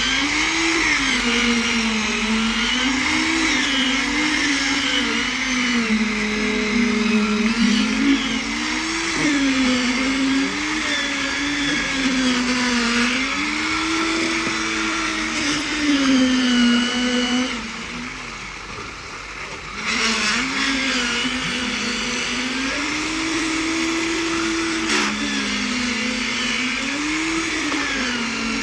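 Concrete poker vibrator motor running with a steady whine whose pitch rises and falls every few seconds, dropping as the vibrator takes load in the wet concrete and rising as it frees up. It goes quieter for a couple of seconds about two-thirds of the way through.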